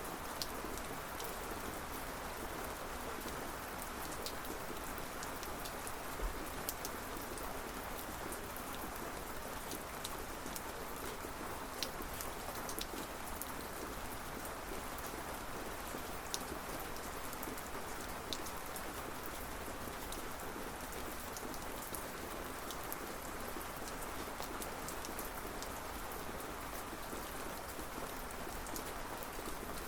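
Steady rain falling, with scattered sharp ticks of individual drops hitting a surface.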